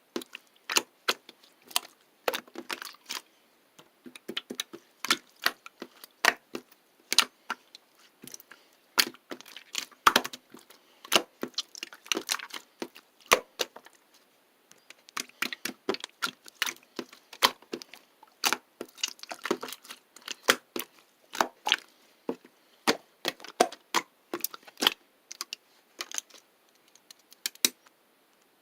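An irregular series of sharp clicks and cracks, a few a second, with short clusters of quick crackling.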